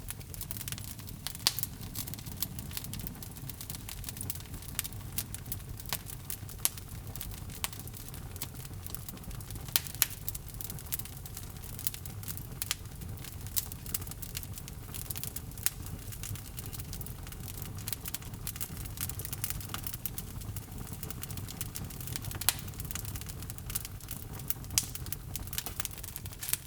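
Log fire burning in a fireplace: a steady low rumble and hiss of flames with frequent small crackles and now and then a sharper pop from the wood.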